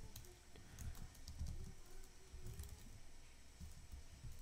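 Faint typing on a computer keyboard: scattered light keystrokes and soft taps.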